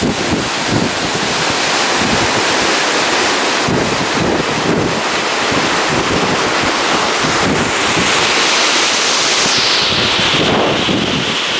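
Mountain stream rushing over boulders in a steady, loud cascade, with wind buffeting the microphone.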